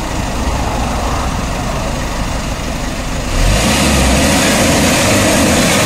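Small diesel truck engine heard at the tailpipe, running steadily and then revved up about three and a half seconds in, the exhaust growing louder and rushing.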